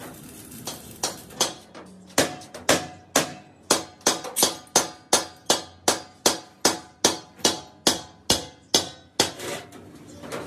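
Hammer blows ringing on a steel air-compressor tank shell: a steady run of about two to three strikes a second, a few lighter blows first and then loud, even ones from about two seconds in, stopping shortly before the end.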